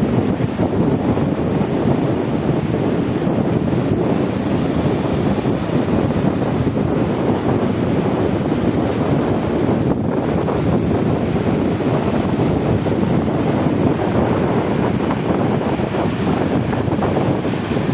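Steady wind buffeting the microphone over the continuous rush of the sea.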